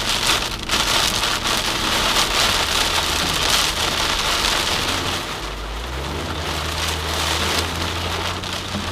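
Heavy rain pelting a moving car, a dense steady hiss of drops. Under it runs a low hum from the car that shifts in pitch about halfway through.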